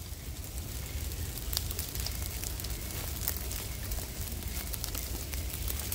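Pile of felled, dried brush burning in a slash-and-burn clearing, crackling with scattered sharp pops over a steady low rumble.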